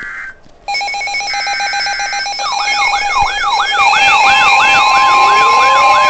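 Several weather alert radios sounding their alarms together for a flash flood warning: steady alert tones begin about a second in, and an electronic siren starts a fast repeating yelp partway through. A further steady warning tone joins near the end.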